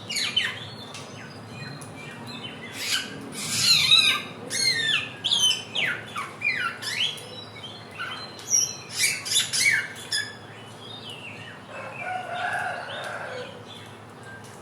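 A young samyong song bird practising its song: a varied run of quick chirps and downward-sweeping whistles in short clusters, then a lower warbling phrase near the end.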